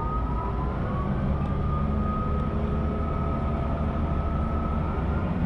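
Diesel railcar pulling away from a station: a steady low engine drone, with a whine that rises in pitch over the first second or so and then holds.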